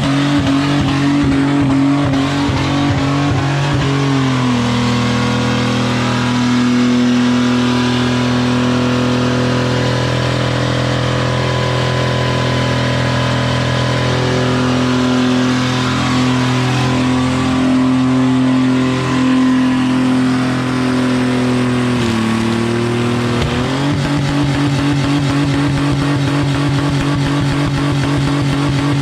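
Car engine held at steady high revs during a skid. Its pitch drops about four seconds in and climbs back up near the end.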